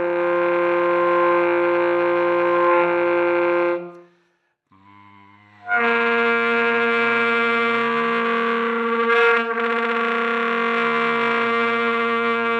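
Saxophone played with the voice-and-sound effect, a note sung into the horn while playing. Two long held notes with a break about four seconds in. A faint sung tone comes in just before each saxophone onset, and during the second note the sung pitch glides against the steady saxophone note.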